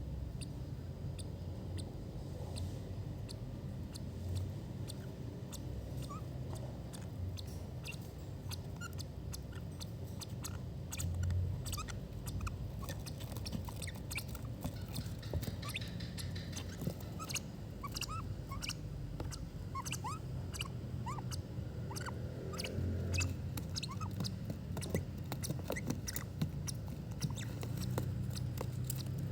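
Two baby lovebirds begging for food: a run of rapid small squeaks, chirps and clicks, busiest around the middle.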